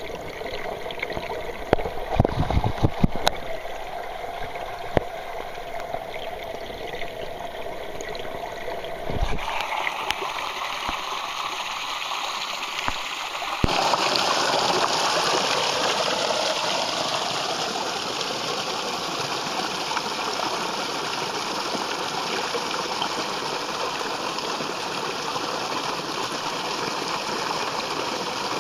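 A small pond waterfall splashing, heard muffled through water by a submerged microphone at first, with a few low thumps a few seconds in. About 14 seconds in the sound suddenly opens up into a loud, clear, steady rush of falling and splashing water as the microphone comes out of the water.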